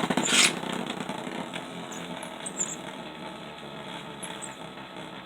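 Beyblade top spinning on a plastic stadium floor just after launch: a steady whirring rattle that slowly fades as it loses speed, with a brief hiss of scraping about half a second in.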